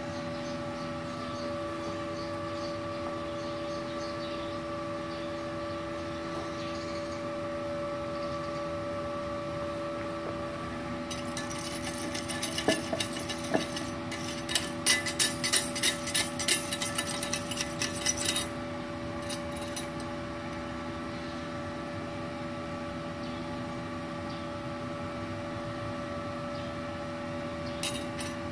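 Steady hum of a switched-on Multipro TIG 200A-SA inverter welder idling. About halfway through comes roughly seven seconds of rapid, irregular scraping and clicking, and a couple of short knocks come near the end.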